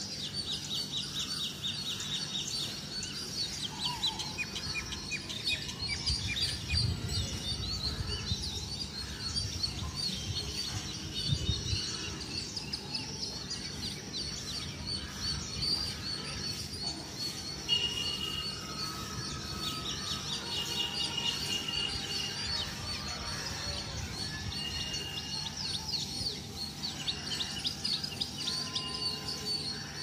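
Small birds chirping and twittering all through, in quick high-pitched runs of notes, with a few longer, steady whistled notes in the second half.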